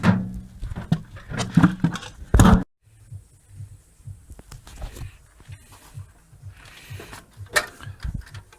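A metal microwave oven case being tipped up on its end and handled, with loud clunks and knocks. After a sudden cut, quieter scattered clicks and knocks of handling follow over a faint low repeating pulse.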